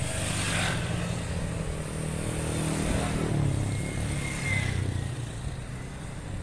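Motor engines running with a steady low hum; about halfway through, one pitch falls away.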